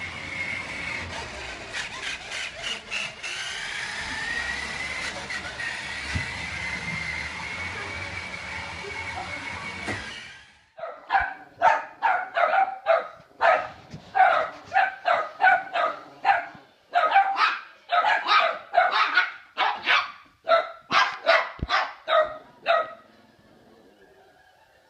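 A toy truck's small electric motor whining steadily, its pitch wavering, for about ten seconds. Then small young dogs bark sharply and high-pitched, about twenty barks in quick succession, which are the loudest part.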